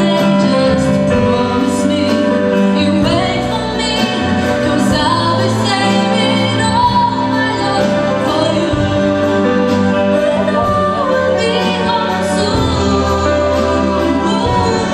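A woman singing a song into a microphone with a live band, piano and drums, accompanying her.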